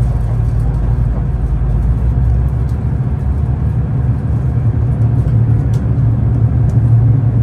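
Steady low rumble of a moving vehicle, with a few faint clicks.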